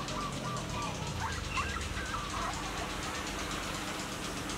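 Newborn puppies whimpering, with short thin squeaky whines and quick rising squeals about a second in, over a steady low hum.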